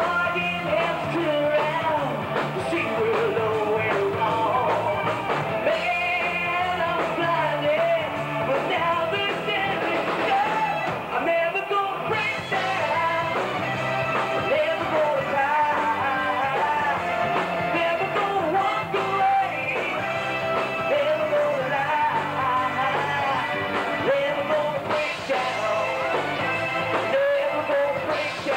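Live rock band playing: electric guitar, bass guitar and drums, with a singer singing lead vocals into a microphone.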